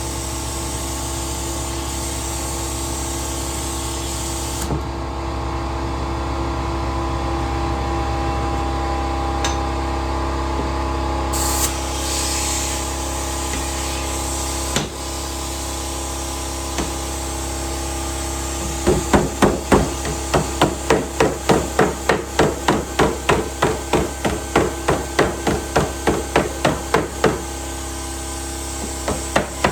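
Hammer tapping on car body sheet metal in a quick even run of strokes, about three or four a second, starting about two-thirds of the way through and briefly again near the end, over a steady background hum.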